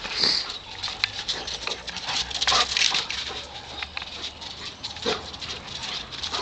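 A dog running laps over bare dry dirt: a quick, irregular patter and scuffing of paws.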